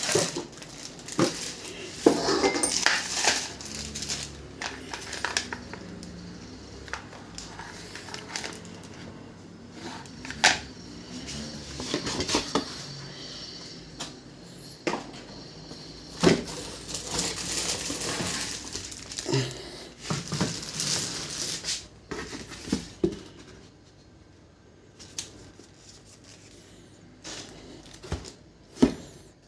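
Electric kettle being handled: irregular clicks, knocks and clatter, as of a lid, body and base being moved and set down, with quieter spells near the end.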